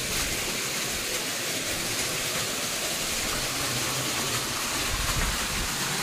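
Steady rush of flowing water.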